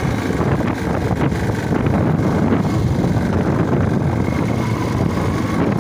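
Motorcycle engine running as the bike rides along, with wind buffeting the microphone. The throttle is being worked by pulling the accelerator cable by hand, because the cable has come out of the twist-grip.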